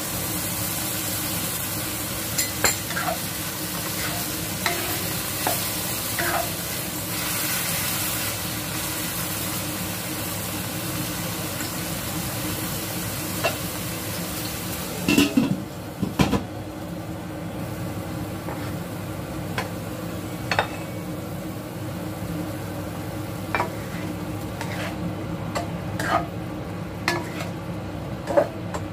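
Broccoli and chicken stir-frying with sauce in a stainless steel wok: a steady sizzle, with a spatula scraping and tapping the pan now and then. A few louder clattering knocks come about fifteen seconds in, and after them the sizzle is softer.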